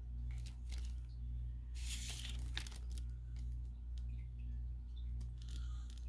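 Sheet of watercolor paper sliding and rustling on the table in one brief burst about two seconds in, with a few faint ticks around it. Underneath is a steady low hum that pulses slowly.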